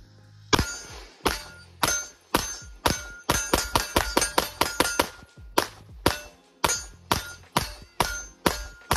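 Smith & Wesson M&P Performance Center Carry Comp ported pistol fired one-handed in a rapid string of about twenty shots, fastest in the middle of the string. A short ringing tone follows many of the reports.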